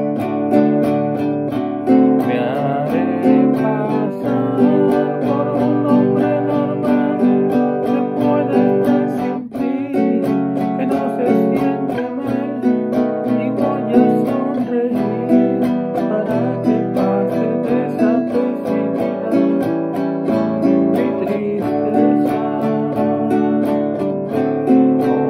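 Nylon-string classical guitar strummed in a steady, even rhythm, chords changing as it goes, with a brief break in the strumming about halfway through.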